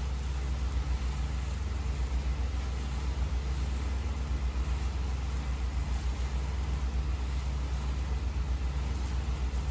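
Engine of a pressure-washing rig running steadily, a low pulsing drone with no change in speed.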